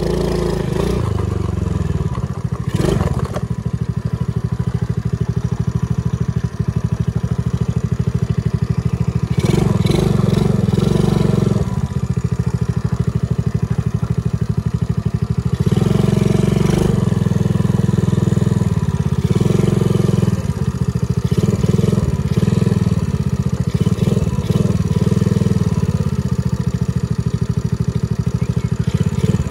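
Small children's four-wheeler (ATV) running along a dirt trail, a steady low rumble from its drive and wheels that surges louder in several stretches from about ten seconds in.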